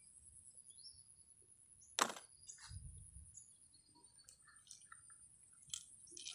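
Hard plastic toys handled on grass: one sharp clack about two seconds in, then a few lighter knocks and rustles. A steady thin high tone and a short bird chirp sit faintly underneath.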